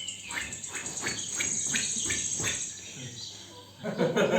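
Stage sound effect of countryside nature: crickets trilling and birds chirping in quick repeated calls, with a louder, lower sound near the end.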